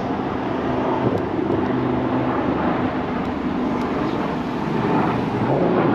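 Ride noise from an electric scooter in city traffic: a steady rush of wind and road noise with a low hum of vehicle engines.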